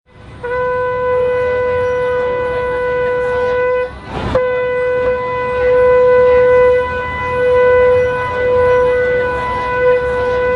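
Shofar (ram's horn) blown in long, steady blasts on one note. The first blast is held for about three and a half seconds; about four seconds in there is a short break with a sharp click, then a second long blast that swells and eases in loudness several times.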